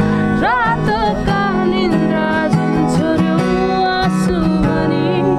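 A Nepali song sung to a strummed acoustic guitar, the voice gliding and wavering on its notes.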